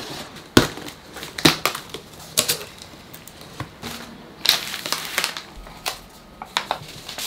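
A cardboard parcel being opened and unpacked by hand: irregular sharp crackles and rustles as packing tape is pulled off and plastic and paper packaging are handled.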